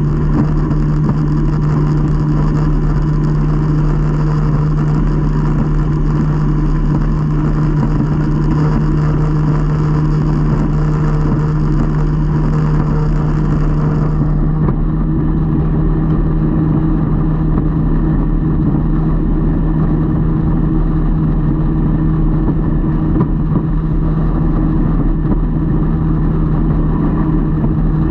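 Boat engine running at a steady cruising speed: a constant low engine hum with a hiss over it, which thins out about halfway through.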